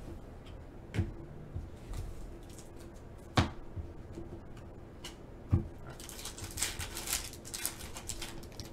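Foil wrapper of a Panini Select trading-card pack being handled and torn open: a few sharp crackles, then a couple of seconds of dense crinkling near the end as the pack is ripped and the cards pulled out.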